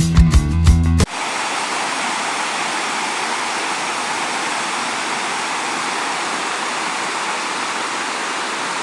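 Intro music cuts off abruptly about a second in, giving way to the steady rushing of a shallow, rocky river over rapids.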